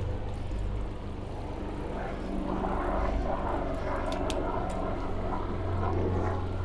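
Aircraft engine drone, steady with a held low hum, swelling a little in the middle, which the rider takes for a helicopter.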